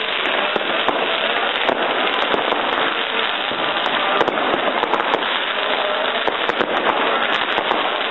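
Fireworks and firecrackers going off in a dense, unbroken run of bangs and crackles.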